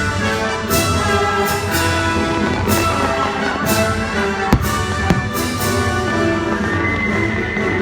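Orchestral fireworks-show soundtrack with brass and timpani playing over loudspeakers. Two sharp firework bangs come about four and a half and five seconds in.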